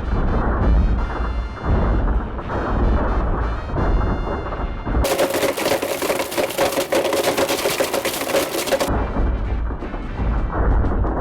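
Blendtec Total Blender running at full speed, grinding an iPhone 5 and a Samsung Galaxy S3 to pieces: a dense clattering grind over a deep rumble, with music mixed in. For a few seconds in the middle the sound turns bright and harsh, with a steady motor whine showing through.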